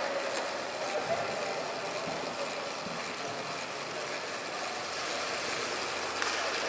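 A track bike's tyres spinning on a set of training rollers: a steady whir from the rollers and the tyres.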